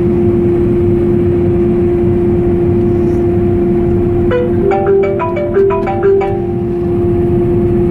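Combine harvester running with a steady hum and low rumble, heard from inside the cab. About halfway through, a short tune of chiming notes at changing pitches plays for about two seconds.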